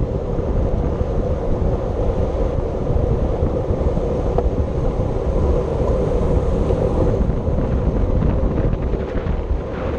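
Steady wind rush buffeting the microphone of a camera on a racing bicycle at speed, with a steady hum underneath.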